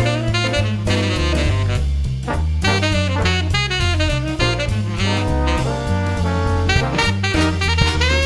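Background music: an upbeat jazz tune with saxophone or brass melody over a walking bass and drum kit.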